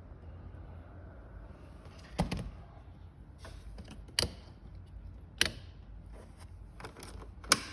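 Four sharp clicks or knocks at uneven intervals, with a few fainter ticks between them, over a low steady rumble: objects being handled.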